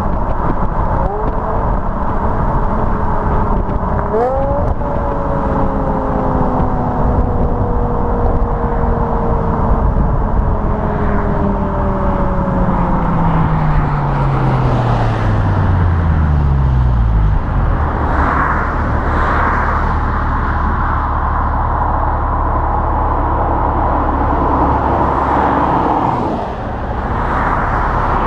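BMW M5 E61's V10, breathing through its standard rear silencers, on the move: the engine note rises quickly about four seconds in, then falls steadily as the car slows. It settles into a steady low idle for the last ten seconds, with tyre and road noise and a few bursts of passing traffic.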